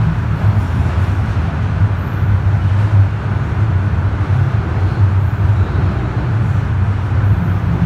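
Subway train running between stations, heard from inside the passenger car: a loud, steady low rumble of the train moving along the track.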